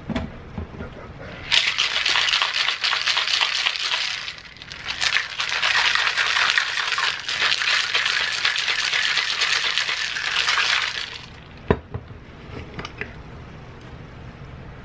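Stainless steel cocktail shaker shaken hard to mix a cocktail, its contents rattling inside in a fast, dense clatter: a bout of about two and a half seconds, a brief pause, then about six seconds more. A sharp knock follows as it is set down.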